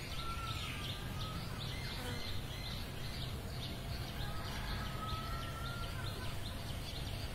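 Outdoor film ambience: small birds chirping repeatedly, about three short chirps a second, over a steady low background hiss, with two long thin whistled notes, one near the start and one past the middle.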